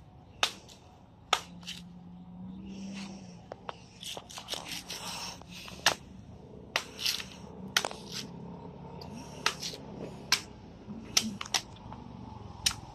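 Knife chopping into the husk of a green coconut: about a dozen sharp, irregular chops, roughly a second apart, with faint scraping between them.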